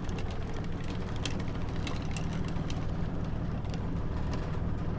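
Boat engine running steadily under irregular light clicks from a fishing reel as a hooked salmon is reeled in, the clicks thickest in the first three seconds.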